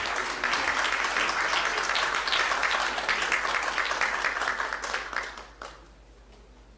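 Audience applauding, the clapping fading away after about five seconds.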